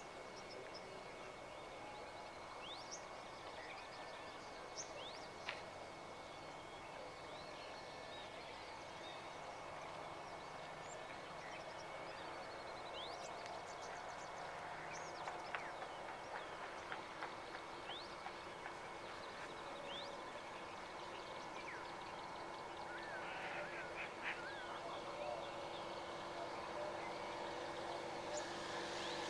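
Outdoor ambience of wild birds: scattered short chirps and quick whistles, with a faint steady high tone behind them. A broader noise swells near the end.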